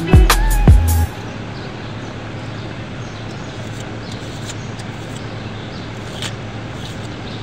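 A loud burst of music with gliding tones cuts off about a second in. After it comes a steady low hum with background noise and a few faint clicks.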